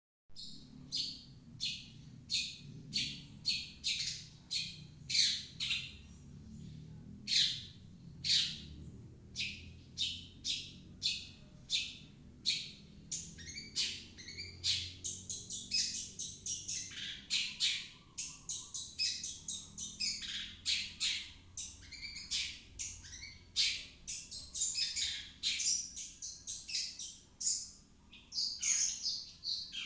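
Long-tailed shrike (cendet) singing: a long run of short, harsh, scratchy chirps that come faster and closer together in the second half. It is a lure recording meant to prompt other shrikes to sing.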